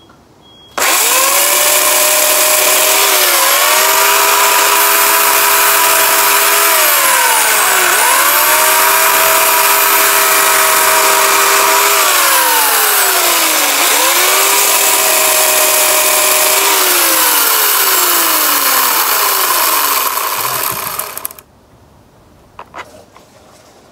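Craftsman electric chainsaw cutting into a tree stump at its roots. The motor's whine starts suddenly about a second in, drops in pitch several times as the chain bogs down in the wood and then climbs back, and finally winds down and stops a couple of seconds before the end.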